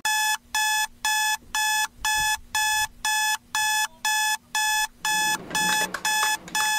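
Electronic alarm beeping in a steady run of short, same-pitched beeps, about two a second.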